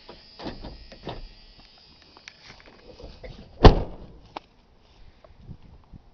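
A pickup truck's door slammed shut once, a single loud bang about two-thirds of the way in, after a few seconds of light handling clicks and rustle.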